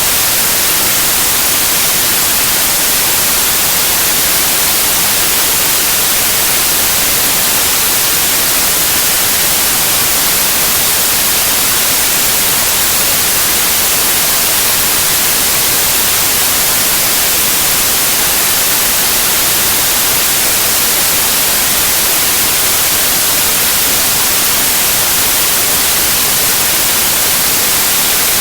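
Steady white noise: an even, unchanging hiss, strongest in the highs, with no rises, falls or separate events.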